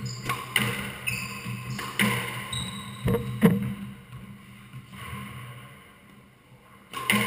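Squash ball knocks off racket, wall and floor, with sneakers squeaking on the wooden court floor during the first few seconds. The loudest knock comes about three and a half seconds in, then it goes quieter until another knock near the end.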